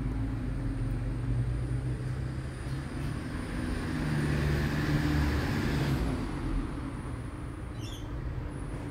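A motor vehicle running and passing by, a steady low engine hum under road noise that swells about halfway through and then fades.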